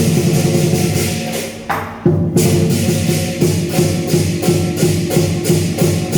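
Lion dance percussion: drum, clashing cymbals and gong playing a fast, steady rhythm, breaking off briefly about two seconds in and then starting again.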